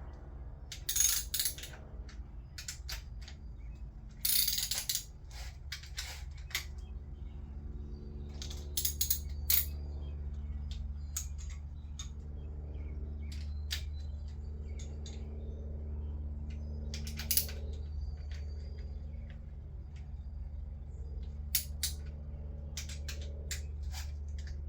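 Ratchet wrench clicking in short runs, with tools clinking on metal, as the camshaft bearing cap bolts on a 2JZ cylinder head are run down. A steady low hum sits underneath.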